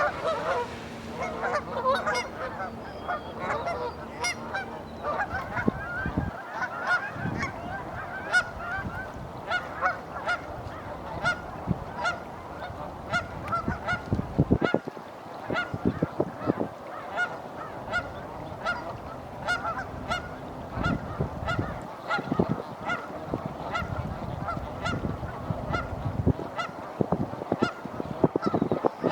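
A large flock of Canada geese honking continuously, many birds calling over one another.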